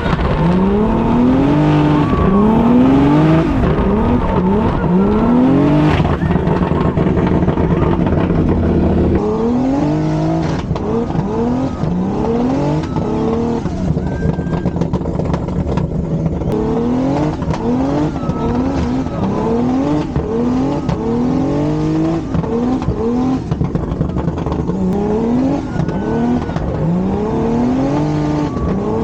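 A drift car's engine revving hard again and again, its pitch climbing and dropping about every one to two seconds, over a steady rush of tire noise.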